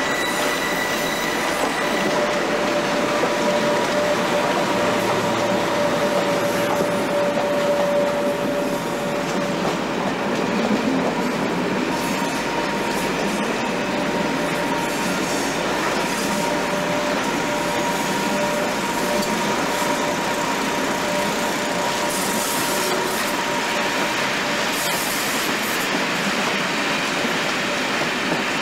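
A Class 86 electric locomotive and its coaches running slowly on the track. The wheels on the rails make a steady rumble and clatter, with a thin steady whine over it.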